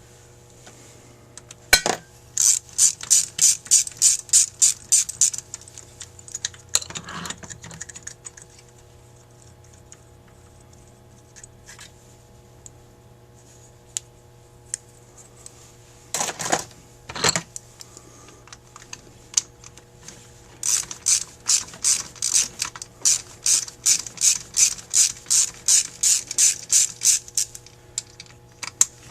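A hand ratchet tool clicking in two rapid runs of about four clicks a second while fasteners are turned out of a carburetor, with a few knocks of parts and tools set down on the bench.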